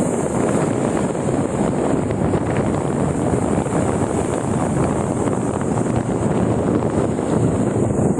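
Steady rush of wind on the microphone and road noise from a moving vehicle while riding, with no distinct engine note or speech.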